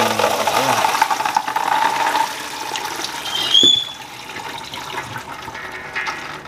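Water pouring out in a steady rush as overnight-soaked peanuts are drained, easing off about four seconds in. A short high squeak and a knock come just before it eases.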